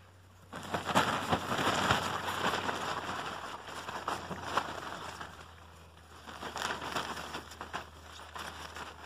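Rustling and crackling with many small clicks, starting about half a second in, dying down and rising again near the end: golden retriever puppies scrambling over grass and a nylon play tunnel.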